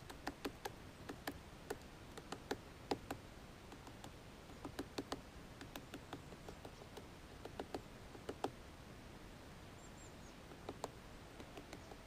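Great spotted woodpecker hammering at a pine cone wedged in its anvil in a pine trunk to get at the seeds: sharp, irregular knocks in quick runs, broken by pauses of a second or two.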